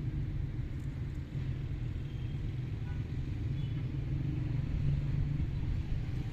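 A steady low rumble of outdoor background noise, with a couple of faint high chirps about two and three and a half seconds in.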